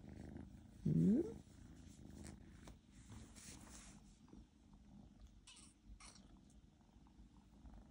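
A house cat purring steadily, a low continuous rumble, while it sits on its owner's lap asking to be petted. About a second in comes one short, louder rising call.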